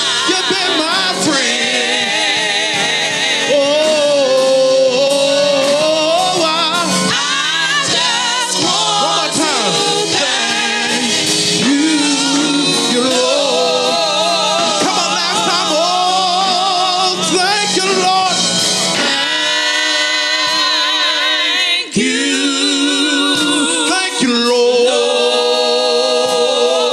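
Gospel praise team singing into microphones: a man's lead voice with women's voices behind him, with strong vibrato on held notes.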